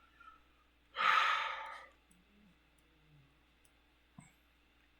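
A man sighs, one long exhale about a second in, followed by a single light click near the end.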